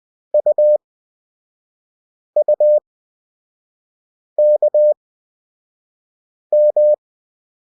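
Morse code practice tone sending four single characters about two seconds apart, at 20 WPM character speed with 5 WPM Farnsworth spacing: U (dit-dit-dah), U again, K (dah-dit-dah), then M (dah-dah). It is a clean, steady mid-pitched beep, keyed on and off crisply.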